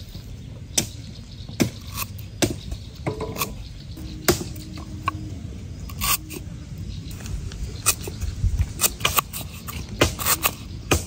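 A knife slicing lemongrass stalks on a round wooden chopping board: sharp, irregularly spaced knocks of the blade striking the board, about one or two a second.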